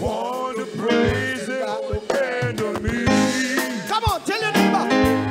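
A man singing a praise-and-worship song into a microphone, with instrumental accompaniment.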